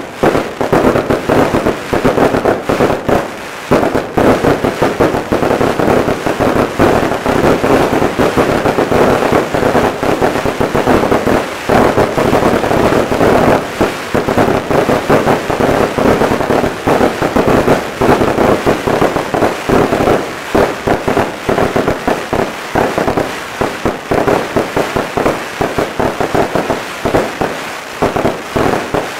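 Aerial fireworks display: loud, dense, unbroken crackling and bangs as shells and glittering stars burst overhead.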